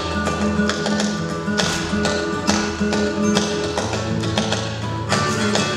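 Flamenco-style dance music, with sharp percussive taps over a steady bass line.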